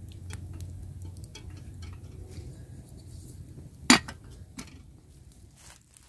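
Small metal clinks from handling a coffee percolator pot and its lid, with one sharp clink about four seconds in and a softer one just after.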